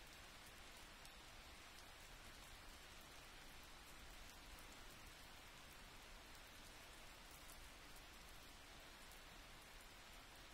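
Near silence: a faint, steady hiss with a few tiny clicks.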